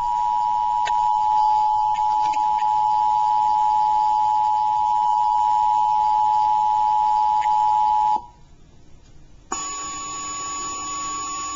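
Emergency Alert System two-tone attention signal, two steady tones sounding together for about eight seconds, then cutting off abruptly. After a short pause a different, quieter steady tone begins near the end, ahead of the tornado warning message.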